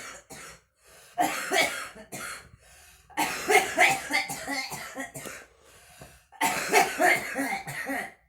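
A smoker coughing in three fits, each a quick run of several coughs, starting about a second in, about three seconds in and about six and a half seconds in.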